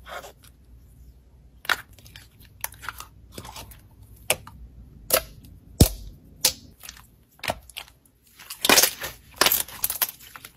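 Clear slime mixed with jelly cubes being poked, squished and pressed by fingers: irregular sharp sticky clicks and pops, turning to a denser crackling run near the end.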